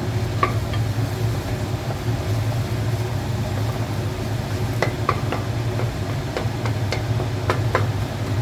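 Tomato and onion masala sizzling in a pan as it is stirred and mashed with a spoon, with sharp taps and scrapes of the spoon on the pan from about five seconds in. A steady low hum runs underneath.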